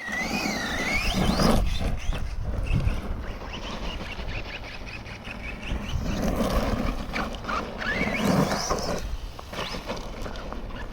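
Rival MT10 RC monster truck's electric motor whining as it is driven, its pitch wavering up and down at first and sweeping up steeply as the throttle opens near the end, over a steady rumbling noise.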